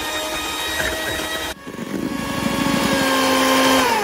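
Electric hand mixer running, its beaters whipping heavy cream in a stainless steel bowl: a steady motor whine. It breaks off briefly about one and a half seconds in, runs again, and near the end falls in pitch as the mixer is switched off.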